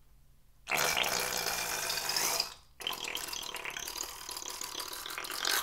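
Slime squirting and spluttering out of the cut neck of a squeezed long balloon in two long gushes, with a short break about halfway through.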